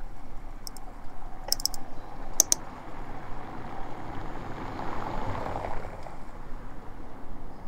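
Outdoor ambience on a walk through town, with a few short sharp clicks between about half a second and two and a half seconds in, then a broad swell of noise peaking around five seconds in.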